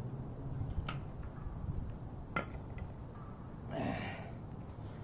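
A man's heavy breath out about four seconds in, winded from a long run of push-ups and squats, over a low steady background rumble; two faint clicks come earlier.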